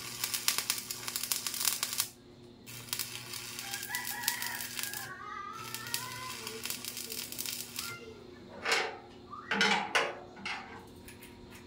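Electric arc welding on a steel frame: a steady crackle that stops briefly and restarts twice, then ends about eight seconds in. A rooster crows about four seconds in, and a few short loud sounds follow near the end.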